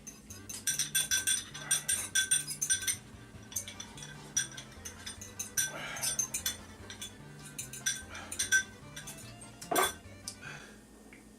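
An eating utensil clinking and scraping against a bowl in quick bursts of taps during the noodle eating, loudest and densest in the first three seconds, over background music with a repeating bass line.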